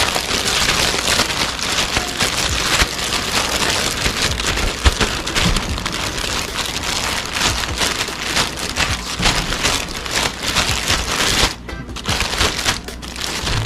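A bag holding fish pieces and seasoning being shaken hard to coat the fish: a dense, rapid rustling and pattering that eases off into a few scattered rustles about eleven and a half seconds in.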